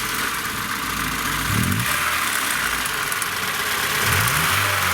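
Car engine idling just after being started, with a metallic ringing that the owner takes for the timing chain.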